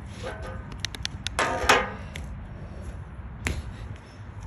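Handling noise: a quick string of sharp clicks and knocks, a louder scraping burst about a second and a half in, and one sharp knock past the three-second mark, over a low rumble.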